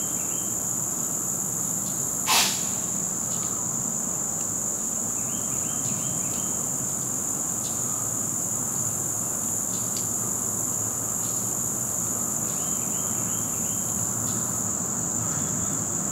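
A steady insect chorus: one constant high-pitched drone, with a few short runs of quieter chirping underneath. A single sharp click about two seconds in.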